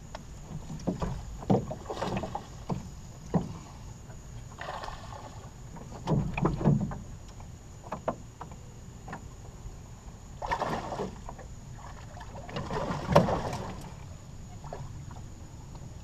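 Irregular knocks and thumps on the hull of a small metal jon boat as an angler shifts his feet and moves about while casting and reeling, with clusters of louder clatter a few times.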